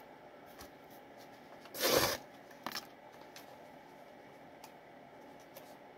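Plastic pouch of Big League Chew bubble gum being handled and pulled open, with one short loud rip about two seconds in, a smaller crackle just after, and faint crinkling.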